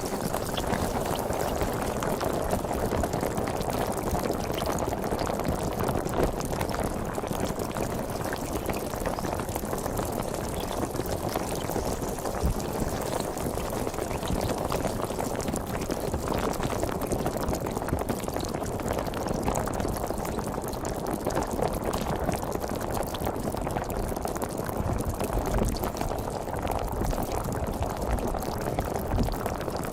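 Sparkling (carbonated) water fizzing steadily, a dense, even crackle of bubbles bursting.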